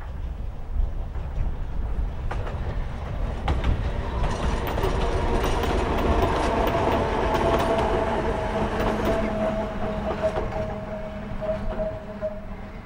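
A Russell snowplough car pushed by an old electric freight car runs past, with wheels clicking over rail joints under a low rumble. A steady whine joins in around the middle as the motor car goes by. It all fades near the end as the train moves away.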